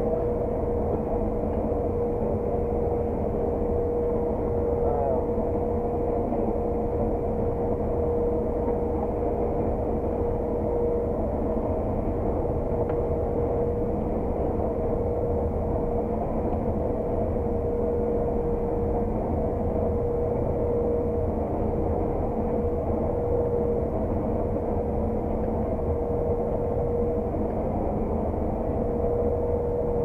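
Claas Lexion 600 TT combine harvester running steadily as it combines oilseed rape, heard inside the cab: an even drone with one held tone.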